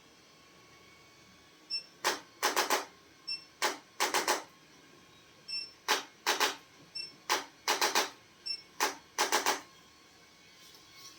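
Sharp cracking clicks from chiropractic adjustments, coming in quick clusters of two or three, about a dozen clusters over roughly eight seconds, starting about two seconds in.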